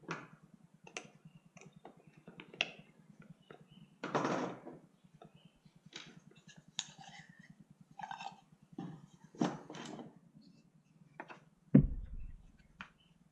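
Scattered small clicks and knocks of wooden parts being handled while a button-plug drawer pull is fitted to a bandsaw box drawer, with a brief rustle about four seconds in and one heavier thump near the end.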